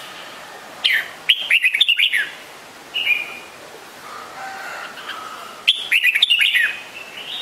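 Red-whiskered bulbul calling: a burst of quick, falling whistled notes about a second in, a single short note, then another burst near the end.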